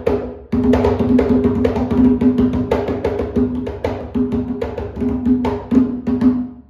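A 60 cm atabaque with a goatskin head, played by hand in a fast, dense rhythm of strokes over the drum's ringing pitched tone. The playing stops just before the end.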